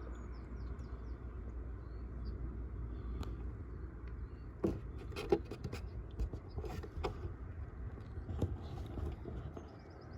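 Handling noise: a scattering of scrapes, clicks and knocks from about halfway through, over a steady low rumble of wind on the microphone.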